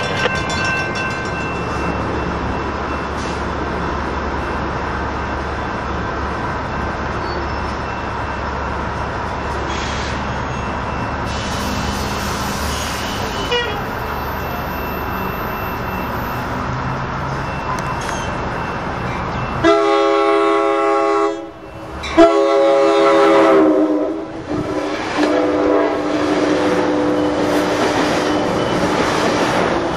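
An Amtrak Pacific Surfliner passenger train sounding its multi-tone horn in two long blasts about two-thirds of the way in, the second dropping in pitch as the train comes past, then its cars rolling by. Before the horn, a steady rumble of a train.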